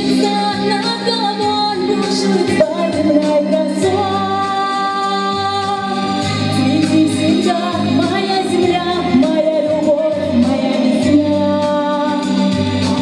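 A song: a woman's voice singing long held notes over steady instrumental accompaniment.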